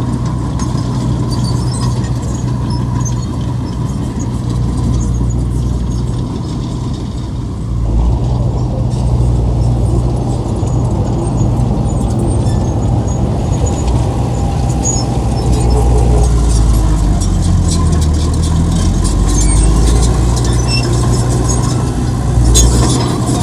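Heavy diesel engine of earthmoving machinery running steadily under load, getting louder about eight seconds in.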